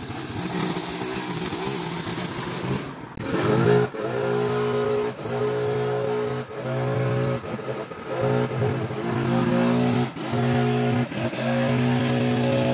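Zero-turn riding mower engine running steadily under load. Over the first three seconds the sound is hissier, and after that the pitched engine hum dips briefly every second or so.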